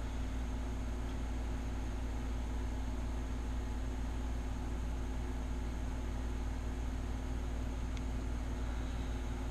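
Steady low hum with a constant hiss, unchanging throughout, with a faint click about eight seconds in.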